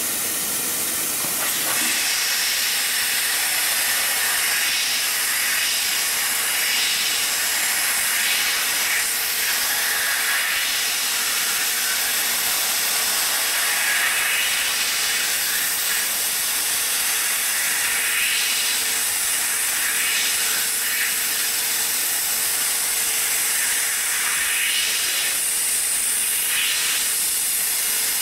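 Hot air blowing from the nozzle of an S700 hot-air welding machine as fabric runs through its weld rollers: a steady hiss with a faint steady hum under it. The hiss grows louder about two seconds in.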